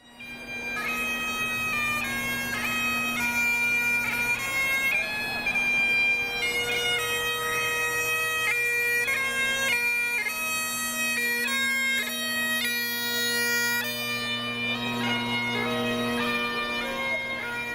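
Bagpipes playing a tune, the chanter's melody moving from note to note over steady low drones.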